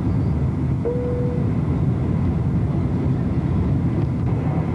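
Steady low rumble of a KLM Boeing 747-200 in flight, its engines and airflow running evenly. A short steady tone sounds about a second in.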